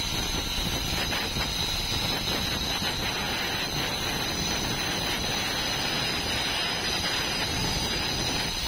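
Handheld Bosch cutter running steadily as its blade cuts a groove through laminate-topped plywood, with a constant high motor whine over the grinding of the cut.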